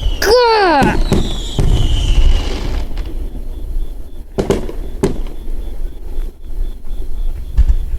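Fireworks going off: a string of sharp bangs and booms over a steady low rumble, with a short falling whistle in the first second and a thinner, higher whistle sliding slowly down about two seconds in.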